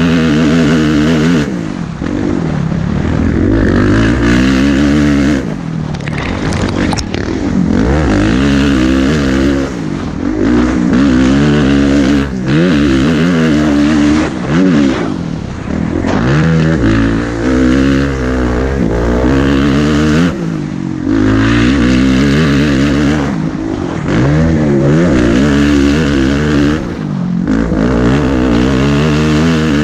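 Kawasaki motocross bike's single-cylinder four-stroke engine under race throttle, revving up and dropping back over and over as the rider opens and shuts the throttle through the track's jumps and turns, heard from the rider's helmet camera. There are several brief drops in engine noise where the throttle is closed, and a short rattle of knocks about six to seven seconds in.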